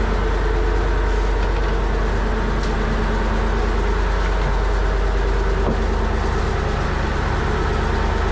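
Fishing boat's engine running steadily at an unchanging speed, a constant low drone.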